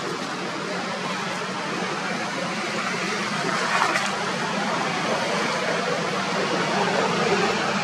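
Steady outdoor background noise, an even hiss-like hum with no clear source, with a brief louder sound about four seconds in.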